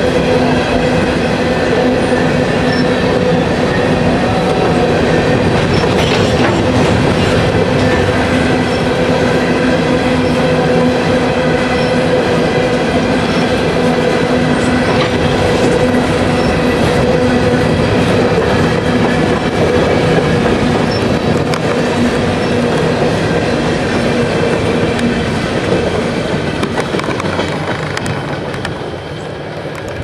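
Freight train of steel hopper cars rolling past: a steady rumble of wheels on rails, with a steady ringing tone underneath. The sound eases off over the last few seconds as the cars draw away.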